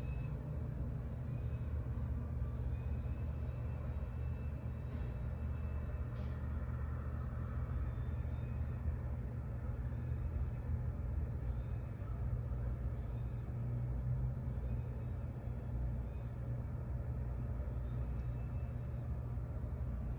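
Steady low rumble of city background noise, like distant traffic, with faint short high sounds now and then.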